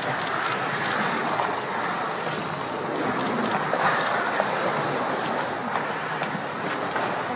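Choppy seawater sloshing and splashing as a herd of walruses swims and dives, with a few sharper splashes and wind on the microphone.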